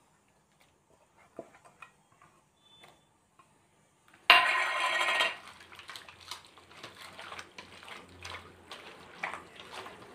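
Hands mixing raw chicken pieces with wet masala paste in a stainless steel bowl, with soft squelches and light knocks against the bowl. About four seconds in comes a loud clatter lasting about a second.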